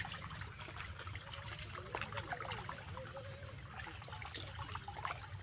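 Faint trickling and lapping of shallow muddy water, with small wet splashes and clicks as a fish wriggles through the pool.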